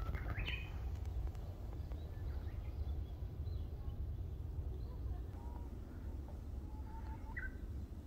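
Wild songbirds calling sparsely: a few faint short chirps and notes, with a sharper call near the end, over a steady low rumble.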